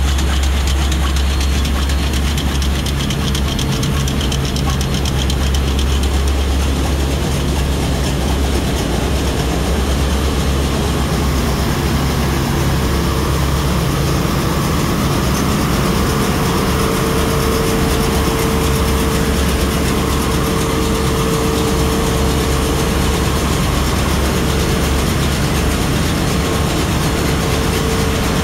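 Steady, loud din of a bulk carrier's engine room: diesel machinery running with a deep, even hum, and a steady whine that comes in around the middle.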